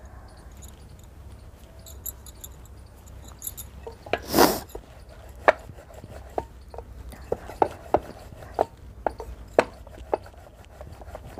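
Wooden rolling pin rolling out dough on a round steel board, clicking and knocking against the metal at irregular intervals from about halfway on. Before that, a short, louder scraping clatter about four seconds in.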